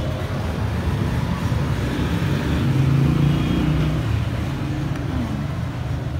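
Road traffic: a steady rumble of vehicle engines, with one engine growing louder about three seconds in and then easing off.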